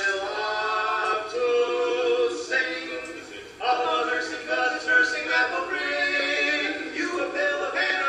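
Men's voices singing a cappella in close barbershop harmony, holding and moving through chords, with a brief break about three and a half seconds in before they come back in.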